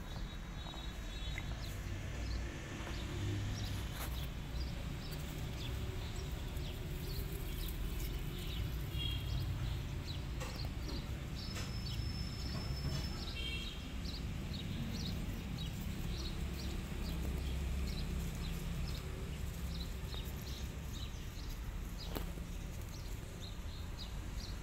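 Outdoor background noise: a steady low rumble with scattered faint clicks and a few short, high chirps.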